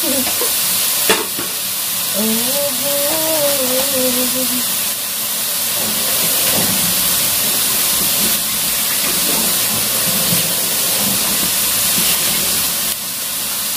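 Chicken pieces and ginger frying in a wok in the fat rendered from the chicken, with no oil added; a steady sizzling hiss.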